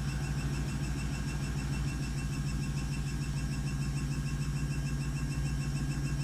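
Samsung Eco Bubble washing machine on its spin cycle, the drum turning at speed: a steady low hum with a fast pulsing rumble underneath and faint high whining tones.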